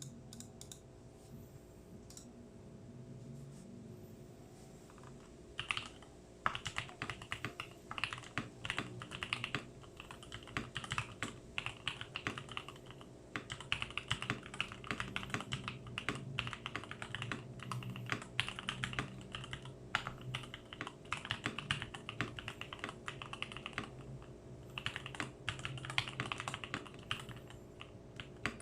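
Typing on a Tecware B68 mechanical keyboard with Gateron Pro Milky Yellow linear switches lubed with Krytox 205g0, with a tape mod, PE foam and O-rings in the build. A low steady hum is heard alone at first; rapid, dense keystrokes start about six seconds in and continue with a couple of short pauses.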